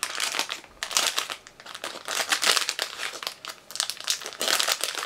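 Crinkly plastic snack bag being handled and rummaged through, crackling in irregular bursts.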